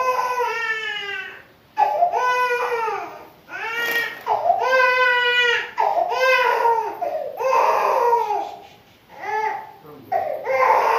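A toddler crying: a string of high-pitched wails, each about a second long, with short breaths between them.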